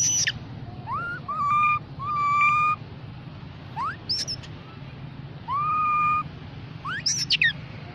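Young macaque giving a string of clear, tonal coo calls, about five, some held level and some rising in pitch, with a couple of higher rising squeaks. These are contact calls to its group.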